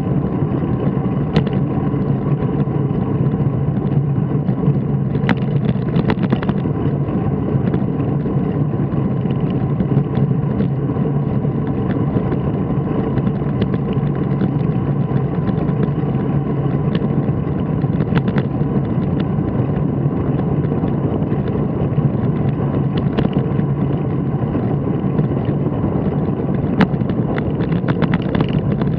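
Steady low running noise of a vehicle cruising along a street, picked up by a camera mounted on it, with a few faint clicks.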